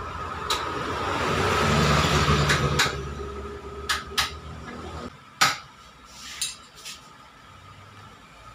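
Metal tools clinking sharply against the motorcycle's steering-head bearing nuts as they are tightened, about eight clinks with the loudest about five and a half seconds in. Over the first five seconds an engine swells and fades.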